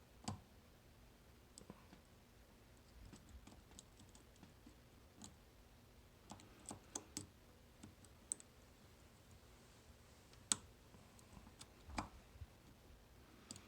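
Faint, irregular small metallic clicks and light scrapes of a dimple lock pick and tension wrench working the pins of a 9-pin dimple lock, with a few sharper clicks, the loudest about ten and a half seconds in.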